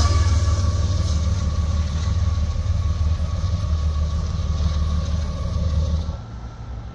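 A CSX diesel locomotive's engine passing close by as a heavy, steady low rumble, with a faint thin whine above it. The rumble drops off sharply about six seconds in.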